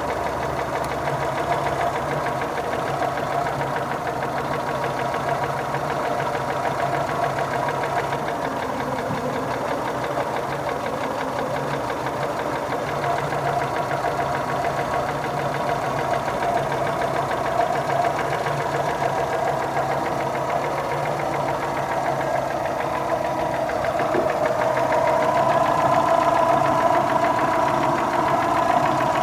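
Engine running with a steady, rapid knock: the engine knock the owner is trying to track down. It gets a little louder near the end.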